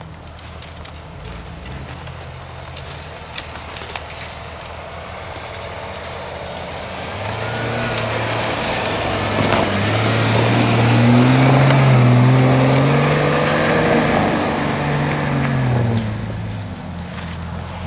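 Jeep Cherokee XJ engine revving as it drives up the snowy trail, rising in pitch and loudness to a peak about twelve seconds in as it passes close, then easing off. A few sharp clicks sound about three seconds in.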